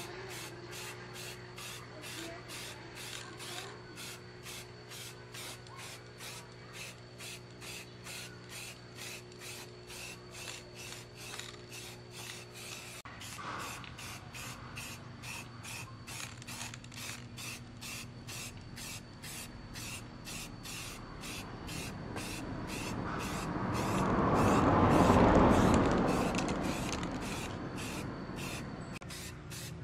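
Aerosol spray-paint can hissing as paint is sprayed onto an engine flywheel, with a quick, even pulsing. About three-quarters of the way in, a louder rumble swells up and fades away again.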